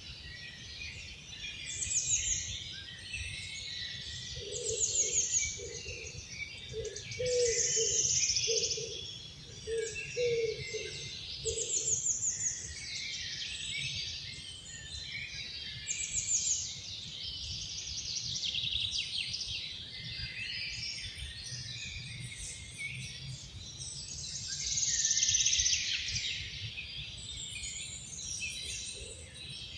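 A chorus of several songbirds singing at once, with loud downward trills recurring every few seconds over a steady low rumble. For a few seconds near the start, a low note repeats about ten times beneath them.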